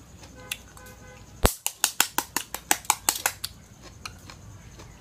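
Metal spoon clinking against a small glass bowl while stirring the spicy dipping sauce: about a dozen sharp, quick clinks, starting about a second and a half in and stopping about two seconds later.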